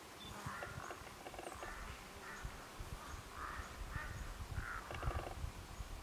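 Bird calls: a series of short calls about once a second, over a low rumble.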